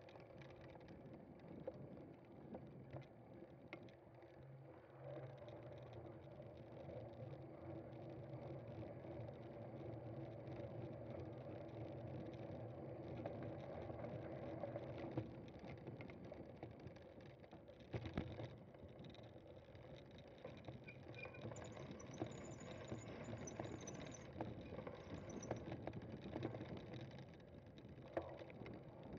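Bicycle riding noise on a cyclocross course: tyres rolling over rough ground and drivetrain rattle, with scattered knocks from bumps.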